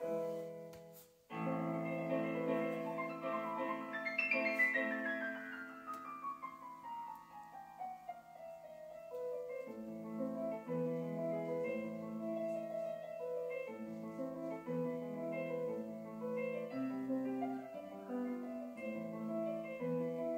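Classical solo piano music: sustained chords, with a long descending run of notes about four seconds in, then more chords.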